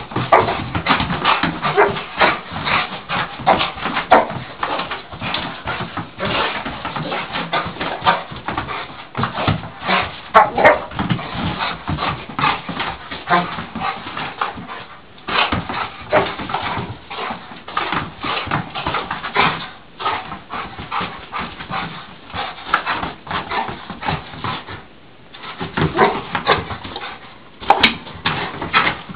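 Dog whimpering and giving short barks in rapid, excited bursts while it plays, jumping at and nosing a balloon.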